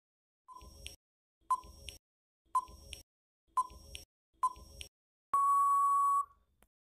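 Quiz countdown timer sound effect: five short ticks about a second apart, then a steady, louder beep lasting about a second as time runs out.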